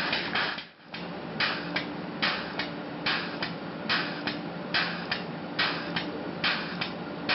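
Pressure-test pump working in a steady rhythm, a pair of sharp strokes about every 0.8 seconds over a steady hum, as it pressurises a composite-repaired pipe reducer. The strokes start about a second in, after a brief drop in sound.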